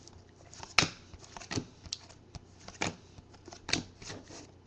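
Trading cards being handled and slid against one another: a series of separate soft clicks and swishes, the sharpest about a second in.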